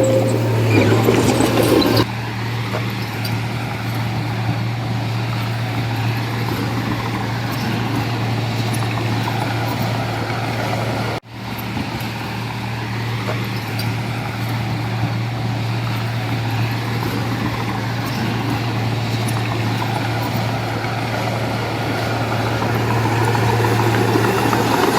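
Heavy diesel engine of construction machinery running steadily with a low, even hum. The sound steps down in loudness about two seconds in and drops out for a moment about eleven seconds in.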